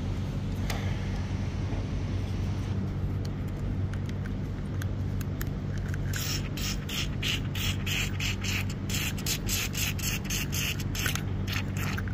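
An aerosol spray can fires a quick run of short hisses through its red extension straw, starting about halfway through. It is soaking a seized gearbox shaft held in a bearing puller. A steady low hum runs underneath.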